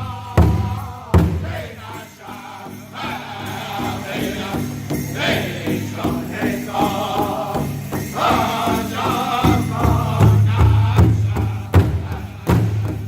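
Powwow drum group singing together over a large shared drum. Hard, evenly spaced drum beats stand out in the first second or so and again near the end, with the voices carrying the song in between.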